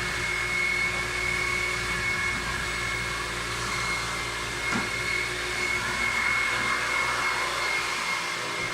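Carpet-cleaning extraction machine sucking through a long floor wand: a steady rushing vacuum sound with a constant high whistle.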